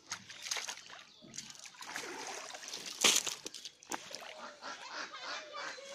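Pond water sloshing, splashing and dripping as a cast net is hauled up out of the water by hand, with one brief louder burst about halfway through.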